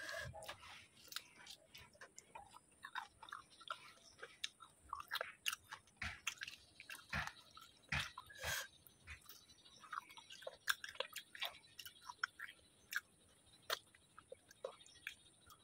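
A person chewing fish bones, crunching them up with irregular small crunches and clicks.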